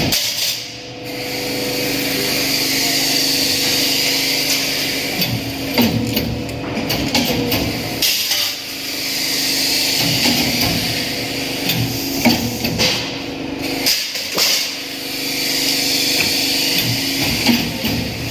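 Workshop machinery running steadily with a hum, a hiss that swells and fades about every eight seconds, and scattered sharp knocks and clanks of metal work.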